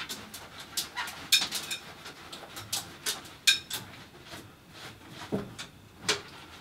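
About a dozen sharp, irregularly spaced clicks and knocks, like small objects being handled, with two duller thumps about five and six seconds in.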